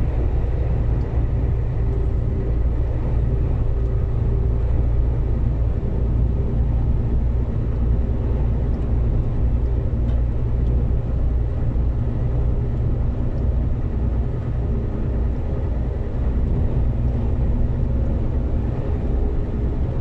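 Diesel truck's engine and road noise heard inside the cab as it drives at highway speed: a steady, unchanging drone.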